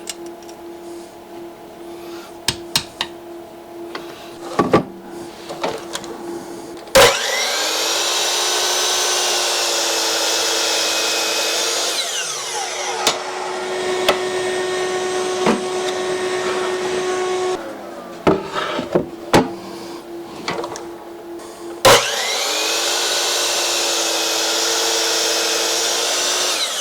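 Electric miter saw cutting maple boards. Its motor starts suddenly and whines up to speed, runs steadily for about five seconds, then winds down in pitch. After some clicks and knocks, the saw starts again about 22 seconds in and keeps running.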